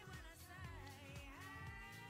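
Quiet background pop music: a melody line gliding in pitch over low bass notes and a soft beat.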